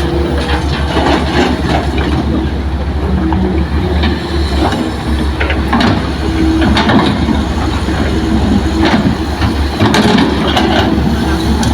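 Diesel engine of a Hitachi excavator running under load with a deep, steady pulse, while scattered knocks and clanks come from the machine working soil into a dump truck.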